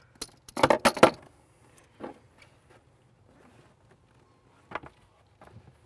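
Hands working a filter canister loose on an outboard engine: a short burst of sharp knocks and rattles about a second in, then a few faint clicks.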